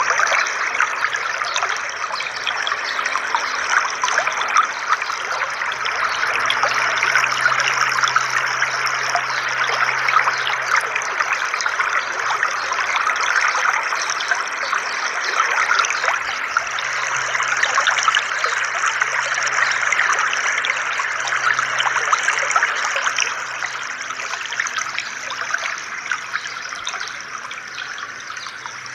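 Pool fountain jets arcing up and splashing back into the water: a steady dense rush of splashing, with a faint low hum underneath. It grows somewhat quieter over the last few seconds.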